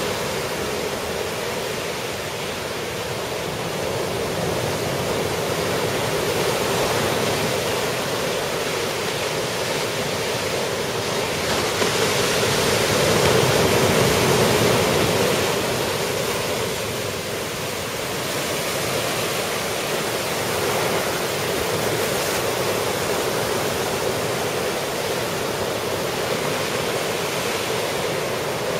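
Ocean surf from a typhoon swell breaking on the beach: a steady rush of waves that swells louder about halfway through.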